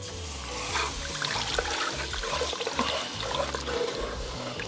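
Chicken stock pouring in a steady stream from a glass measuring cup into a hot enamelled cast-iron Dutch oven, splashing over the browned onion, garlic and flour on the bottom.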